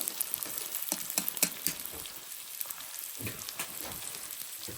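Fish frying in a pan with oil-fried chili and mujiangzi, sizzling steadily. A few sharp clicks of stirring come in the first couple of seconds.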